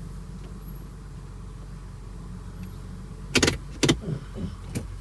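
Idling engine of a 2002 Acura MDX, a steady low hum heard from inside the cabin. About three seconds in come two loud sharp clunks and then a few lighter clicks as the automatic gear selector is moved through its positions from reverse towards second.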